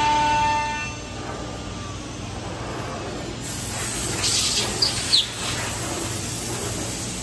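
Five-axis CNC router (Woodmaster Pro-T4E) cutting curved plywood: the spindle's high steady whine stops about a second in as the tool leaves the cut. A steady machine noise with a hiss follows and grows louder from about halfway through, with a couple of short high chirps.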